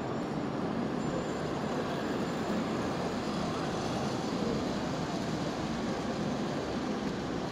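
Steady background din of a large hall full of people, with no single event standing out.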